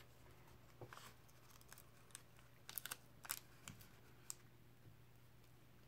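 A few quiet, sharp snips and clicks of scissors cutting clear sticky tape, bunched together a little past the middle, over a faint steady hum.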